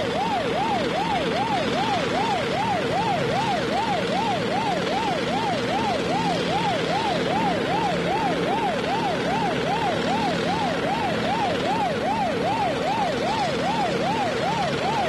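Siren-like warbling tone, sweeping up and down about two and a half times a second without a break, over a steady bed of rumbling noise.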